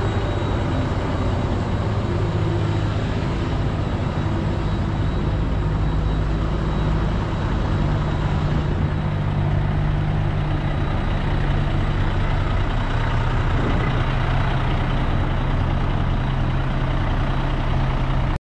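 Volvo VNL semi truck's diesel engine idling with a steady low rumble, its pitch shifting slightly a few times.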